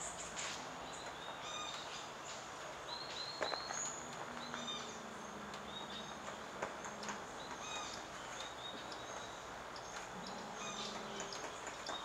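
A few single sharp taps, a Lineated Woodpecker pecking at a Cecropia trunk for ants, spaced about three seconds apart. Behind them runs a steady stream of many short, high-pitched chirps from other birds.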